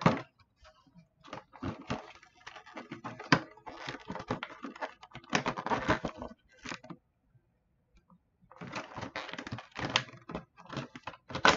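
Hands pulling a mini football helmet out of its cardboard box and clear plastic display case: irregular clicks, taps and rustles of plastic and cardboard, stopping for about a second and a half a little past halfway before starting again.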